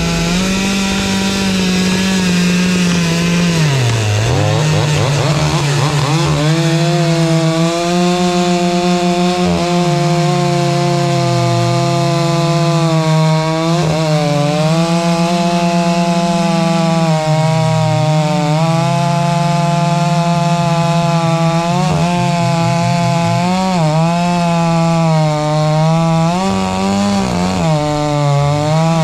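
Two-stroke chainsaw running at full throttle while cutting through a tree trunk; its steady high engine note sags in pitch several times as the chain takes load in the wood, then picks back up.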